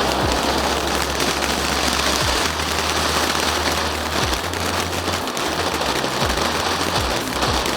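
Ice Cream Cone ground fountain firework burning, a steady loud hiss of spraying sparks with a dense crackle running through it.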